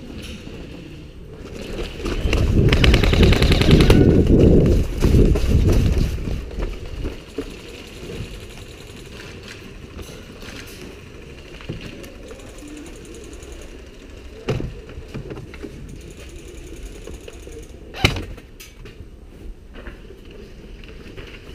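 Airsoft rifle firing a long full-auto burst of rapid, evenly spaced shots for a few seconds. A few single sharp shots or BB impacts follow later on.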